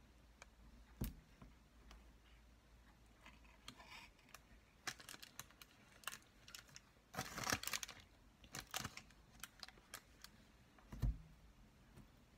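Small kitchen knife cutting cherry tomatoes, the blade clicking and tapping on the board in a scatter of light taps, with heavier knocks about a second in and near the end.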